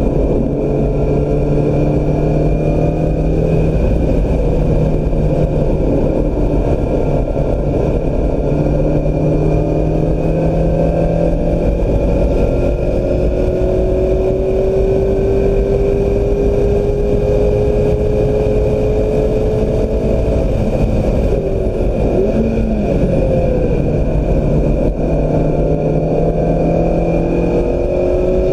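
2016 Mazda MX-5 Miata's four-cylinder engine under hard acceleration around a race track. Its note climbs steadily in several long pulls broken by gear changes, dips briefly about two-thirds of the way through and climbs again, over a constant loud roar of wind and tyres.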